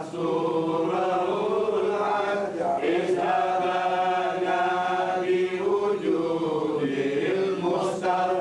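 Quran recitation: a solo voice chanting in long, drawn-out melodic phrases, breaking briefly for breath about three seconds in and again near the end.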